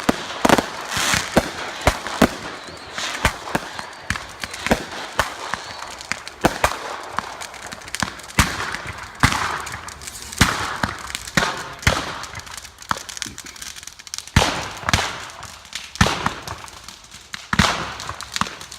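Fireworks going off: a long irregular run of sharp bangs, with bursts of hissing crackle between them.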